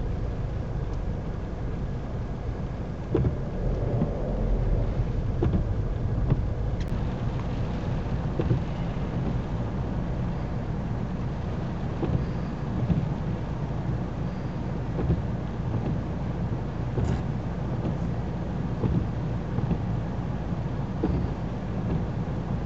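Car engine running, a steady low rumble with scattered light taps over it.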